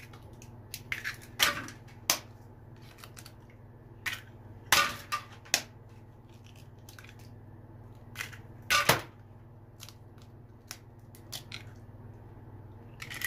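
Raw eggs being cracked open by knocking one against another over a mixing bowl: a string of sharp shell cracks and crunches every second or two, the loudest about two-thirds of the way through.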